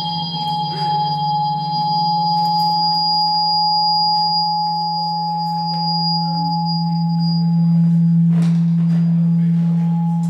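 Acoustic feedback from condenser microphones aimed at active loudspeakers, ringing as a chord of steady held tones: a loud low tone, a mid tone and two high whistling tones. The highest tone fades out about three-quarters of the way through. There is a brief rustle or knock about eight seconds in.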